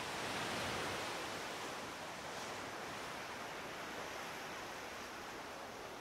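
A steady, even rushing noise, water-like, that swells to its loudest in the first second and then holds steady.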